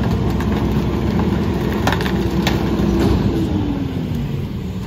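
Mack LE rear-loader garbage truck's engine and hydraulic packer running under load as it compacts tree branches, with a couple of sharp cracks of wood breaking about two seconds in. A little past three seconds the whine drops in pitch and the sound eases off slightly.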